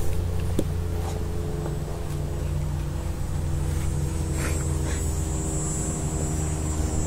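A steady low mechanical hum, like a motor or engine running, fills the clip, with a thin high whine joining it about halfway through. Over it come a few faint short crunches of a Bernese mountain dog tearing at grass.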